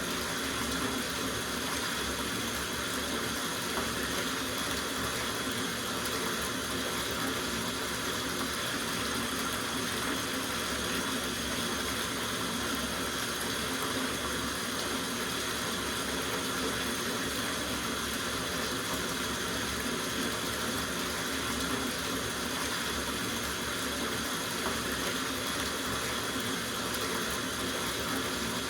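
Water running steadily from the tap into a soaking bathtub, a constant rushing splash with no change in level.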